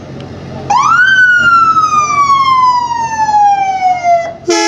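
Ambulance siren starting a little under a second in, rising quickly and then gliding slowly down in pitch for about three seconds. Near the end a deep, steady air horn blast comes in over it, above the rumble of traffic.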